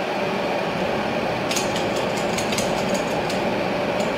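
Steady hiss of a pan of hot frying oil with metal rosette molds heating in it, with a few light clicks and pops around the middle and one more near the end.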